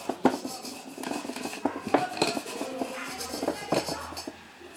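Fan bearing parts clinking and scraping, metal on metal, as they are handled and scrubbed clean of dirt. The clicks come irregularly, several a second.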